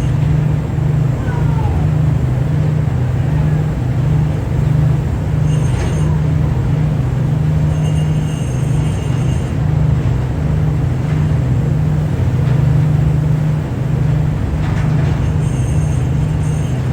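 Boat engine droning steadily, a low hum that pulses evenly, over a wash of wind and water noise.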